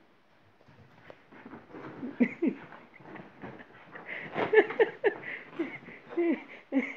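Labrador–Staffordshire mix dog grumbling and whining in short noises that drop in pitch while it tussles with a blanket. The noises begin about two seconds in and come thicker and louder toward the end.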